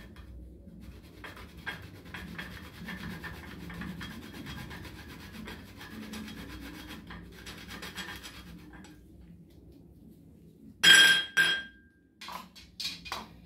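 Whole nutmeg grated by hand on a small flat grater: a fast, rough rasping of quick strokes for several seconds, then it stops. Near the end come two loud ringing clinks and a few lighter knocks.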